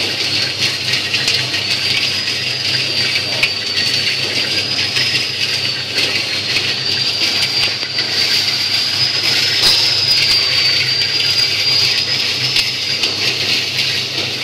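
Commercial popcorn seasoning machine running, its drum turning: a steady low motor hum under a high whine that wavers slowly up and down in pitch, with a constant hiss.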